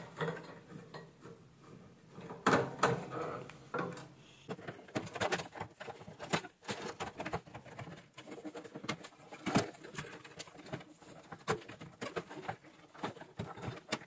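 Irregular light clicks, scrapes and taps of a screwdriver on screws and of a microwave oven's plastic front control panel being handled and worked loose, with a few louder knocks.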